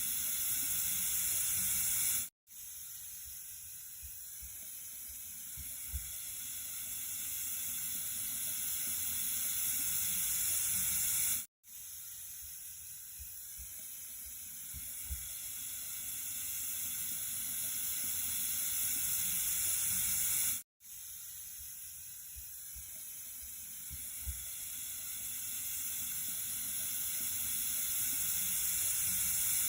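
Steady hissing rush of flowing water. It is a short recording looped about every nine seconds: it cuts out for a moment at each seam and swells slightly in loudness through each pass. A faint low knock comes once per loop.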